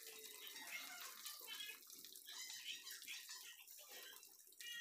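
Pork chop pieces frying in hot oil in a pan, a faint steady sizzle, as they are turned with tongs.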